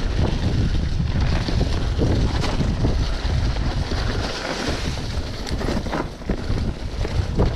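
Wind buffeting an action camera's microphone on a fast downhill mountain-bike run, with scattered knocks and rattles from the bike over the rough trail.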